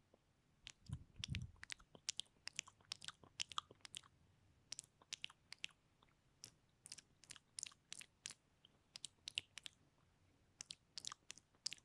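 Close-miked ASMR mouth sounds: quick, wet clicks and smacks of lips and tongue, coming irregularly several a second, with a soft low thump about a second in.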